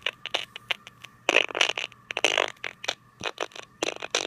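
iPhone 4S loudspeaker crackling and sputtering in irregular bursts at low volume instead of playing the song cleanly, the noise a faulty headphone jack causes.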